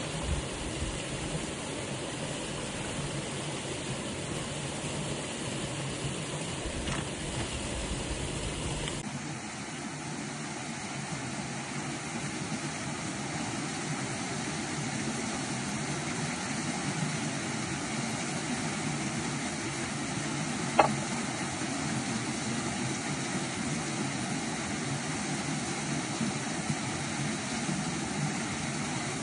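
Steady rushing of flowing river water, with the sound changing abruptly about a third of the way through, and a single sharp click about two-thirds of the way through.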